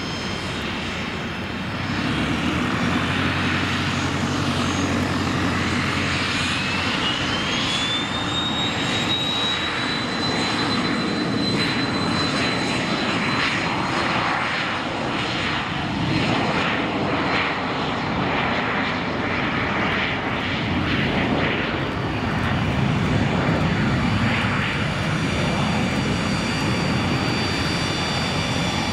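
Twin Williams FJ44 turbofans of a Cessna Citation CJ4 spooling up to takeoff power about two seconds in, a whine rising in pitch and then holding steady over the engine roar, through the takeoff roll and liftoff.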